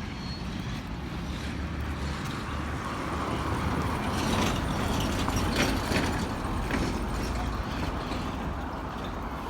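A car driving past on the street, its engine and tyre noise swelling to a peak about halfway through and then fading.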